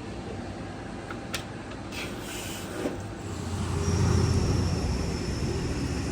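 GE-made Hotpoint top-load washer spinning a load during its spin test: a steady low rumble that swells louder about three seconds in, joined by a thin high whine.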